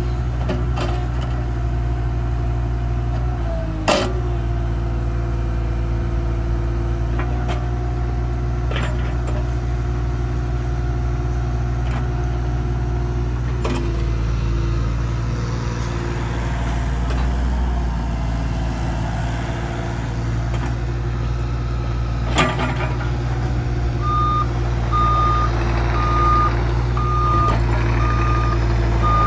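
Caterpillar 303.5 CR mini excavator running steadily under operation, its engine and hydraulics droning with small shifts in pitch, with two sharp metallic clanks. Near the end its travel alarm starts beeping, about once a second.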